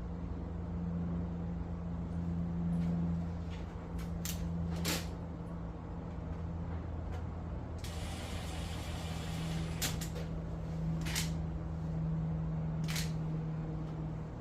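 Front cover of a VFD being handled and fitted back on: several sharp clicks and knocks, with a brief rushing scrape about eight seconds in, over a steady low hum.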